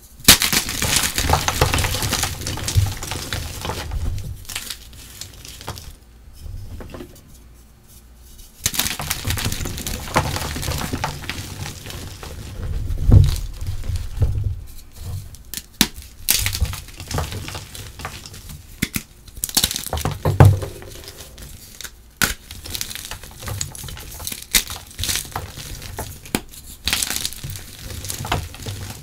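Blocks of charcoal-dyed gym chalk crushed and crumbled by hand in a bowl: dry crunching and powdery crumbling in bursts, with a few sharp snaps as pieces break. There is a quieter lull of a couple of seconds about six seconds in.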